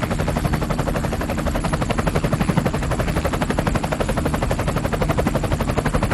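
Fast, even chopping pulses running steadily, made by the Voice Changer Plus app's helicopter effect.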